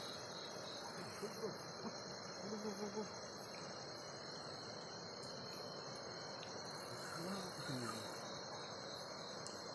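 Chorus of night insects, a steady high-pitched trilling in several tones.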